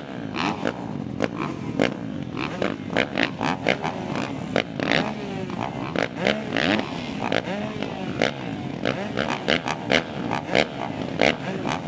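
Several dirt bike engines idling and blipping their throttles on the start line, the rider's own two-stroke KTM 250 SX close by, with pitch rising and falling as the revs go up and down. Frequent sharp pops are mixed in.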